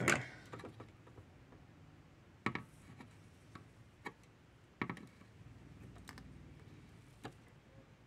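A few light, sharp clicks and taps, four in all and spread apart, from hands and a soldering iron working a fan connector on a PS5 circuit board, over a faint steady low hum.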